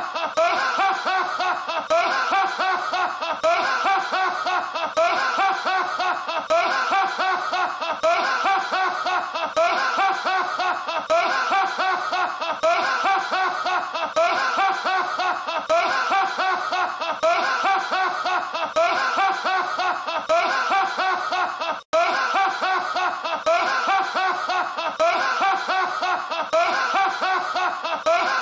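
A man laughing hard and without pause, the same laugh repeating over and over in a loop. There is a sudden brief dropout about 22 seconds in.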